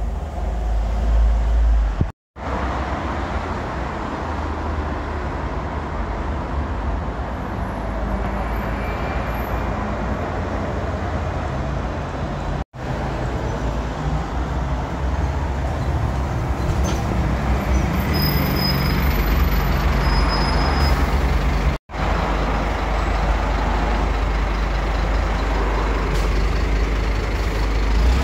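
City buses running and passing close by in street traffic, diesel engine rumble mixed with tyre and road noise. Three brief cuts break the sound about 2, 13 and 22 seconds in.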